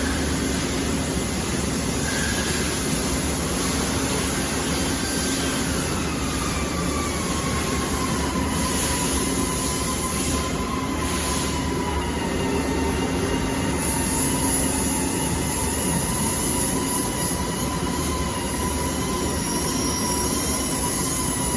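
Gantry robot and factory machinery running: a steady mechanical noise, with a motor whine that slides down in pitch partway through and then holds steady.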